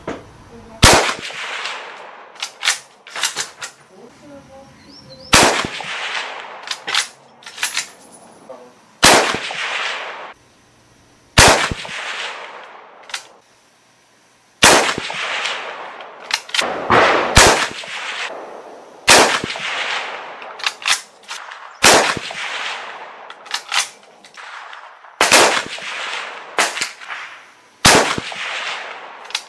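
Mosin-Nagant bolt-action rifle firing 7.62×54R soft-point rounds: about a dozen sharp shots a few seconds apart, each trailed by an echo. Shorter, weaker clacks between the shots are the bolt being worked.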